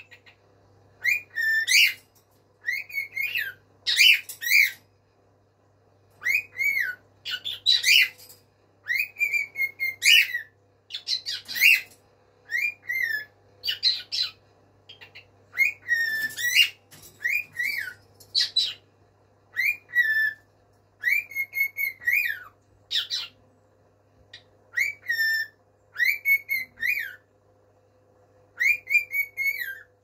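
Male cockatiel repeatedly calling to his mate: loud whistled contact calls with a rising-and-falling pitch, in short clusters every second or two.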